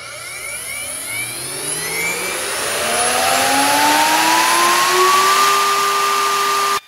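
CNC router spindle with a large spoilboard flattening bit spinning up: a whine that rises steadily in pitch and levels off at full speed about five seconds in, over a loud hiss. It cuts off suddenly near the end.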